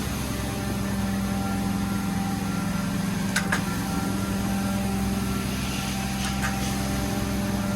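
Carpet-cleaning machine running with a steady, even hum, with a few short clicks about halfway through and again later.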